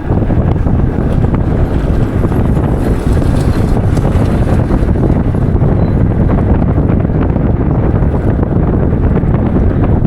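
Loud wind buffeting the microphone, a steady rough rumble with no pauses.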